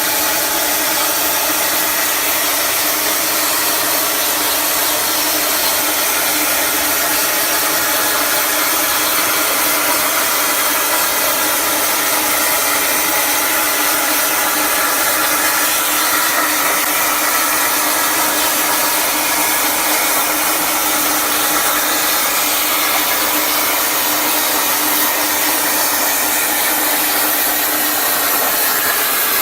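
EMC-3000 CNC plasma cutter's torch cutting steel plate, a loud, steady hiss with no breaks.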